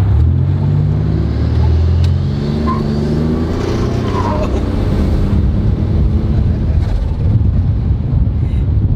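Buick Grand National's turbocharged 3.8-litre V6 running through a new Pypes exhaust while driving, heard from inside the car: a deep, steady drone for about four seconds that then settles into a low rumble.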